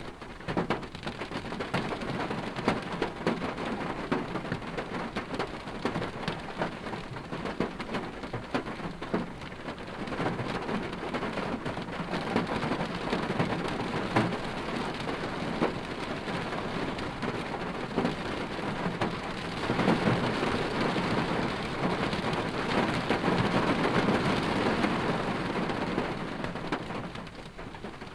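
Noise inside a car cabin while driving: a dense, steady rush full of small patters and ticks. It swells louder about two-thirds of the way through, then eases near the end.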